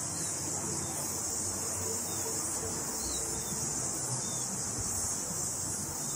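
Steady high-pitched chorus of insects trilling without pause, with a few faint chirps over it.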